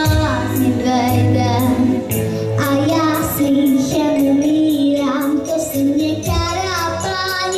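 A nine-year-old girl singing a melody into a handheld microphone, holding long notes with vibrato, over backing music with a steady beat.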